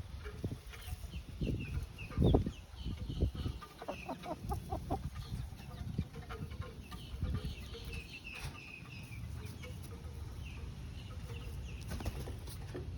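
Young chickens clucking, with many short high peeps scattered throughout, amid irregular scuffs and knocks; a louder thump about two seconds in.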